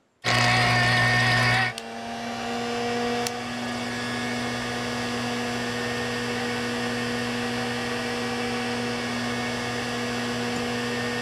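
Electric countertop blender blending fruit chunks. It starts abruptly at full loudness for about a second and a half, then runs on steadily at a lower level with a constant motor hum.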